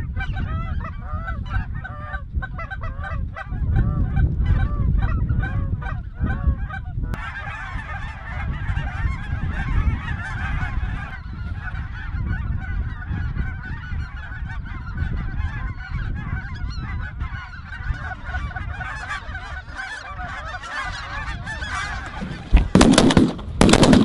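A flock of geese honking and calling overhead, many overlapping calls at once, with wind rumbling on the microphone. Near the end a quick volley of loud shotgun blasts breaks out.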